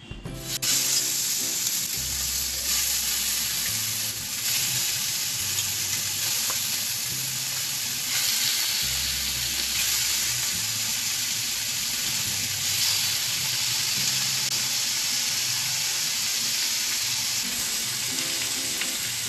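Marinated chicken pieces sizzling in hot oil on a grill pan, the sizzle starting suddenly about half a second in as the first piece goes down and holding steady as more pieces are laid in with tongs.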